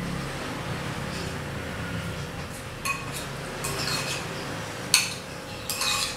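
A metal spoon stirring sambal matah in a ceramic bowl, scraping the wet sliced shallots and chili and clinking against the bowl's rim and sides several times, mostly in the second half.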